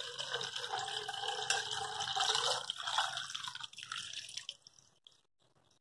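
Cloudy rice-rinse water poured in a stream from a steel bowl into a steel pot that already holds water, the rice held back by hand. The pour runs steadily, then thins and stops about four and a half seconds in.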